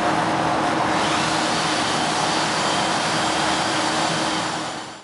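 Steady drone of woodworking machinery running: an even rushing noise with a steady hum under it, fading out just before the end.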